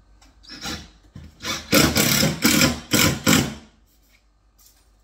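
Cordless impact driver with a long bit boring through the side of a chipboard wall cabinet for a connecting bolt, run in about five short, loud bursts, the longest near the middle.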